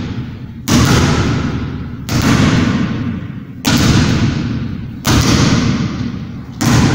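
Basketballs thudding on a hard floor about once every second and a half, five times, each thud echoing in a large, bare hall.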